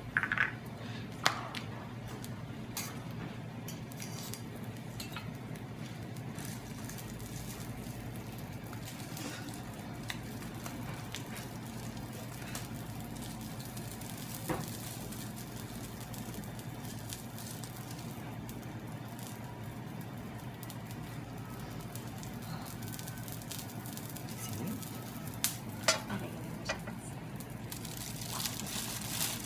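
Food sizzling quietly on a teppanyaki steel griddle over a steady low hum. A few sharp clinks of utensils and dishes come near the start and again near the end.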